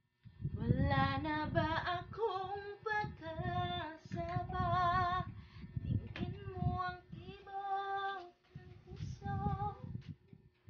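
A woman singing a melody in long held notes with a wavering vibrato, breaking off shortly before the end.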